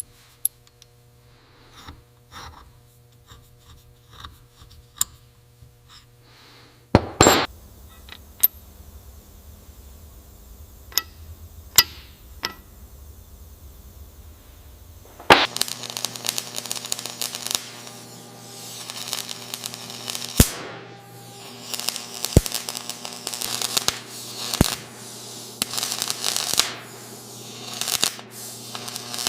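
Hand work on a metal part: scattered small clicks and knocks, one louder knock about a quarter of the way in. From about halfway, steady rubbing and scraping like sanding takes over, over a low hum.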